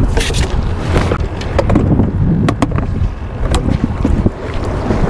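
Wind buffeting the microphone on an open boat, a heavy low rumble, with a few sharp ticks near the middle.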